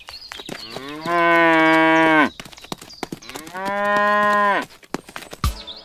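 Cow mooing: two long calls, each rising at the start and then held, the second about a second and a half after the first ends.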